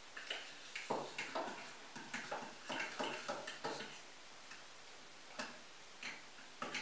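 A utensil clinking against a small metal cup in a quick, uneven run of light taps, stirring lard into warm water so that it melts; the taps thin out to a few scattered ones after about four seconds.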